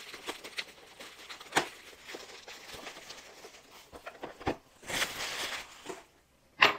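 Plastic bubble wrap crinkling and rustling as it is cut with scissors and a cardboard box is pulled out of it, with scattered small clicks. There is a sharp knock near the end.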